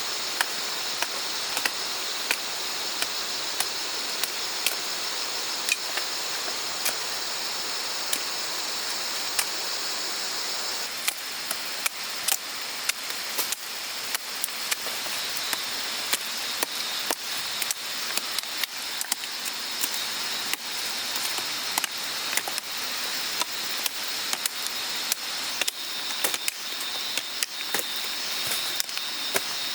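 Many sharp short clicks or knocks at irregular intervals, coming faster from about a third of the way in, over a steady high-pitched hiss.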